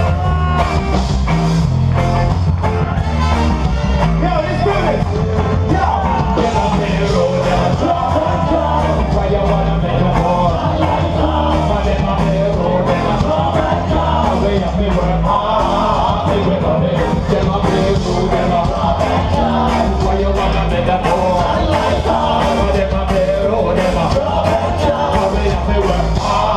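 Live band playing loud, heavily bass-driven music with a singer and a steady drum beat, heard through a small camera's microphone in the crowd.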